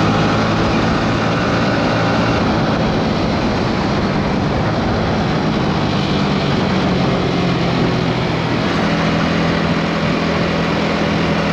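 Motorcycle engine running steadily while riding, under heavy wind rush, heard through a GoPro Media Mod's built-in front mic.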